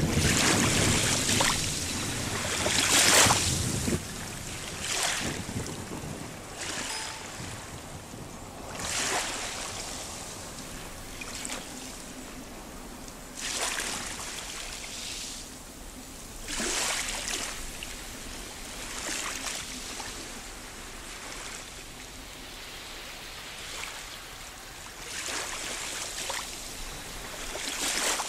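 Waves breaking and washing over beach rocks, surging and hissing every few seconds. The largest wave comes about three seconds in, with a low rumble; the later ones are smaller.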